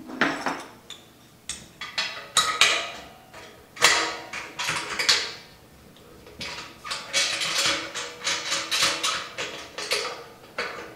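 Stainless steel tri-clamp fittings and clamps clinking and clanking against the steel cone of an Ss Brewtech half-barrel unitank as they are fitted and tightened by hand: an irregular series of metallic knocks with a short ring, with a quicker run of clicks from about seven seconds in.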